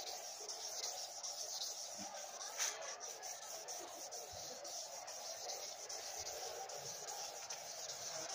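A hand rubbing along the flat of a polished steel katana blade, over a steady high background hiss, with one short click about two and a half seconds in.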